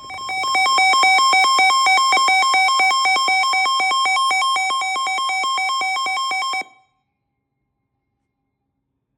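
Weather-radio alert alarm: a loud electronic tone with several pitches at once, beeping rapidly at about six or seven pulses a second. It lasts some six and a half seconds and cuts off suddenly. It signals that a new warning is about to be broadcast.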